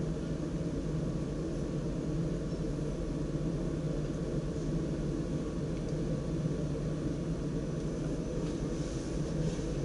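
Steady low hum and rumble inside the cab of a DDZ double-deck electric train standing at a platform. A few faint clicks come near the end.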